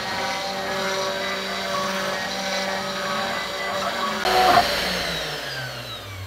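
Genmitsu 6050 CNC router running as its 1/8-inch bit cuts a circle in a wooden board: a steady spindle whine mixed with musical stepper-motor tones. About four seconds in there is a brief louder burst, and then the spindle winds down with a falling whine as the job ends.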